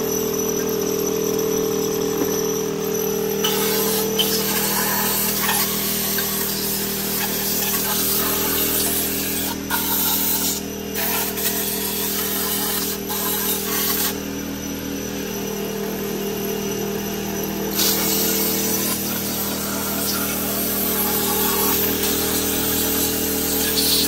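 A power tool running steadily, with rougher noisy stretches coming and going over its steady tone.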